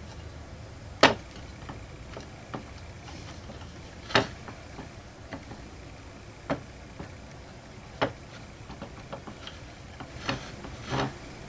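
About six sharp knocks and clicks, a second or more apart, the loudest about a second in, from hands handling a statue while a sculpted clay hand on a wire pin is fitted to its wrist, over a faint steady hum.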